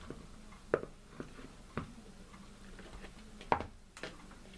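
A few sharp, separate clicks and taps of the box fan's plastic blade hub being worked onto the motor shaft, the loudest about three and a half seconds in.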